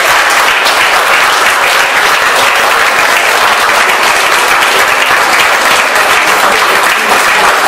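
A large crowd applauding, loud and steady.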